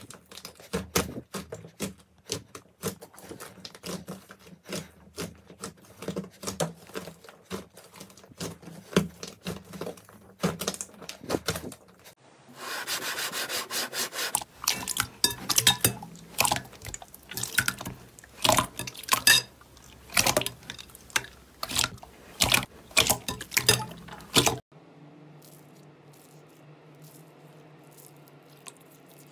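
Slime squeezed and kneaded by hand in a bowl. First a soft, thick slime gives a steady run of quick sticky crackles and small pops. About halfway a glossy slime gives a brief rubbing rush, then louder wet squelching pops. Near the end everything turns much quieter.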